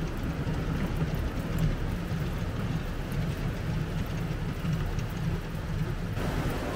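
Kontiki winch drum spinning fast as the kontiki pulls the mainline off it, a steady low rumble.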